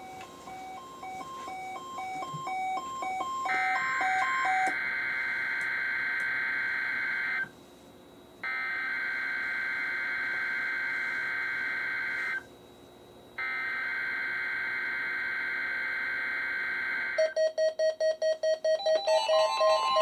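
NOAA Weather Radio SAME data header for the weekly test, sent three times as loud data bursts of about four seconds each with a second's pause between, heard through a shelf of weather radios. Before the first burst a radio beeps rapidly in two alternating tones. After the third burst the radios set off their alert alarms together in a clash of pulsing beeps, and a steady high tone joins near the end.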